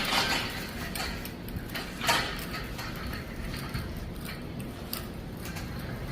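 Scattered mechanical clicks and knocks of equipment being handled, with a short scraping rush about two seconds in.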